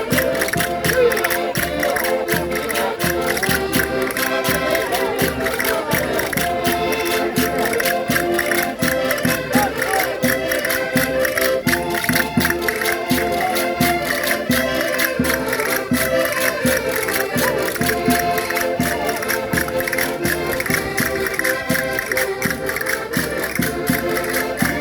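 Concertinas playing traditional folk dance music: sustained reed chords and melody over a steady beat.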